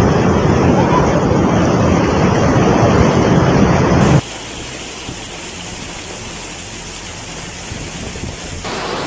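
Muddy floodwater rushing in a fast torrent, a loud steady rush of water that cuts off suddenly about four seconds in. A much quieter steady noise follows.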